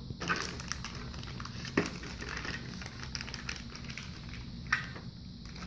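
Clear plastic bag packaging crinkling and rustling in a child's hands as toy pieces are unwrapped, with two sharper knocks, about two seconds in and near the end.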